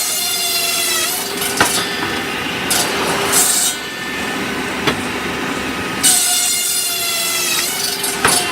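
Circular sawmill blade spinning, with a high whine that sags slightly in pitch as it cuts through wood. The whine ends about a second in and comes back for a cut of about two seconds near the end, with a few sharp knocks between the cuts.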